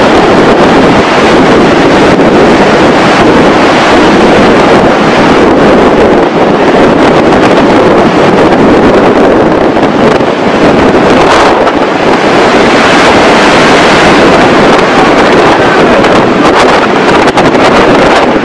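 Loud, steady rushing roar of tsunami floodwater surging through a street, with no break or change in strength.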